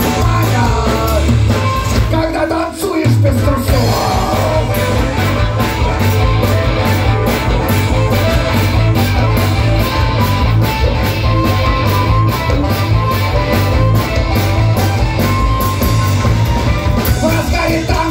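Live rock-and-roll band playing an instrumental break: drums keeping a steady beat under bass, electric guitar and harmonica. The bass and drums drop out for a moment about two and a half seconds in, then pick straight back up.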